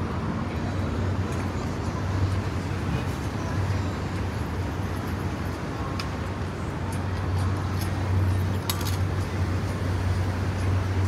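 City street ambience: steady road traffic noise with a low rumble, with voices in the background. A few short sharp clicks come about six and nine seconds in.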